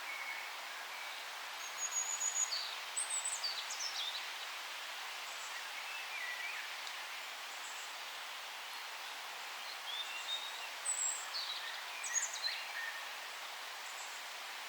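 Forest birds singing over a steady background hiss: short runs of quick, high chirps and whistles come in two bunches, about two seconds in and again about ten seconds in.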